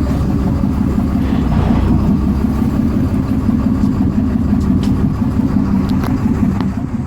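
Boat engine idling, a steady low drone.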